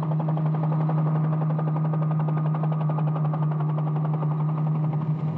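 Helicopter in flight: a steady engine drone with a fast, even rotor beat.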